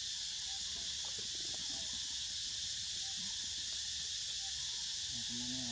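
Steady chorus of insects, a continuous high-pitched hiss that does not change.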